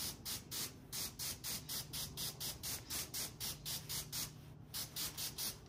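Pistol-grip garden hose nozzle spraying a fine mist of water over seed trays, a hiss that comes in quick, even pulses, about four or five a second. The pulses fade out just before the end.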